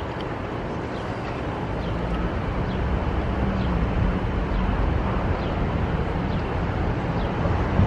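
City street traffic noise: a steady low rumble of passing vehicles, with a vehicle engine humming for a few seconds in the middle.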